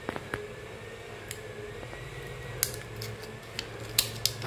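Backing film being peeled off the adhesive pad of a clear acrylic phone holder and the plastic handled: scattered sharp plastic clicks and crackles over a low steady hum.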